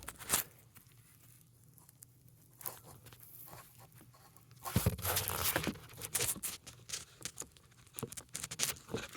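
Handling noises from fire alarm parts being picked up and set down: a knock just after the start, a short rustle about five seconds in, then a run of small clicks and taps.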